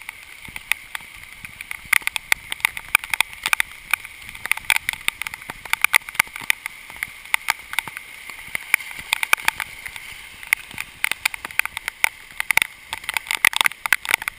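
Heavy rain falling, with raindrops striking the camera as a dense, irregular patter of sharp taps over a steady hiss.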